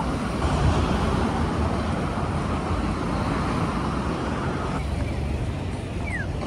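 Road traffic on a city street: a steady rumble of passing cars and tyres, easing about five seconds in. A short falling chirp sounds near the end.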